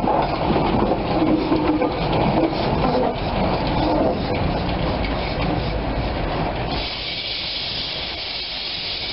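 Narrow-gauge steam tram locomotive running slowly past, with wheels clattering on the rails and steam hissing. About two-thirds of the way through, the rumble and clatter drop away and a steady hiss is left as it moves off.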